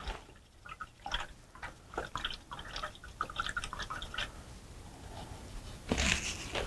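Paintbrush being rinsed in a cup of water: a run of small splashes and drips for about four seconds. A louder rustle of paper towel follows near the end.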